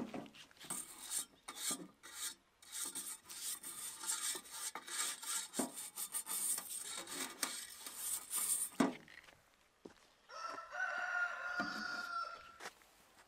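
Stiff-bristled plastic brush scrubbing the side of a stainless steel pot in rapid rasping strokes for about eight seconds. Near the end a rooster crows once.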